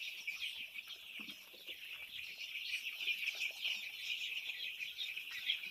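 A shed full of seven-day-old chicks peeping continuously: a dense, high chorus of many overlapping chirps.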